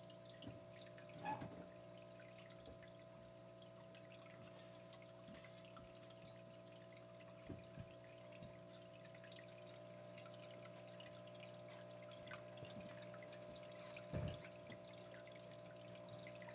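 Faint water trickling and dripping in an aquarium, with small irregular splashes over a steady electrical hum.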